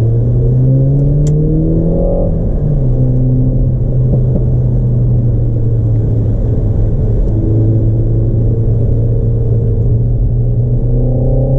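Renault Megane RS Trophy engine pulling hard on track: the revs climb for about two seconds, drop at an upshift, then hold fairly steady before rising again near the end.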